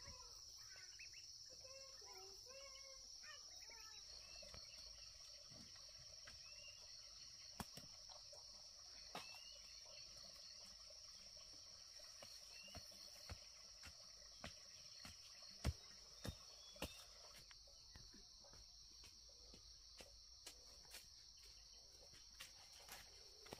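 Steady, faint, high-pitched insect drone, with scattered faint clicks and snaps.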